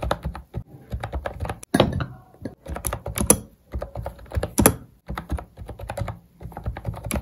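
Fast typing on a computer keyboard with round, typewriter-style keycaps: a clatter of key clicks in quick runs with brief pauses.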